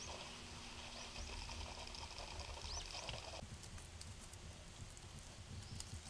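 Faint outdoor ambience: a low rumble under a steady high hiss with a few short rising chirps, which cuts off abruptly about three and a half seconds in, leaving scattered light clicks.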